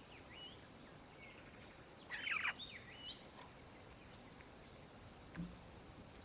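Birds calling outdoors: short rising chirps repeat, with one louder, rapid chattering call about two seconds in. A dull thump comes near the end.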